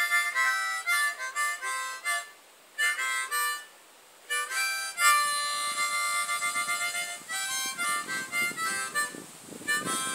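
Harmonica played in short blues phrases of held notes and quick note changes, with two brief pauses about two and four seconds in.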